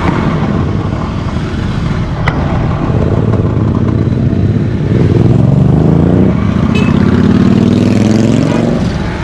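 Motorcycle engines in slow road traffic. A nearby engine revs up and down, loudest from about five seconds in until near the end.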